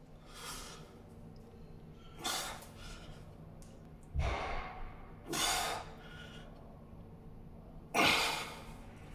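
A man breathing out hard in short bursts, about five times, straining as he holds flexed bodybuilding poses; the one about four seconds in comes with a low thump.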